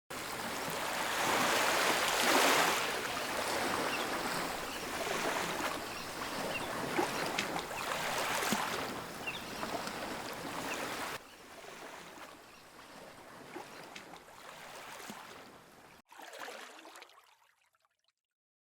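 Ocean waves washing on the shore, a steady rush of water that swells and eases. It drops abruptly to a quieter stretch about eleven seconds in, then fades away near the end.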